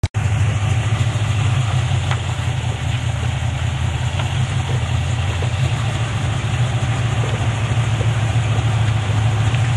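1966 Ford Mustang's engine idling steadily, running smoothly on a newly fitted set of ignition points and condenser.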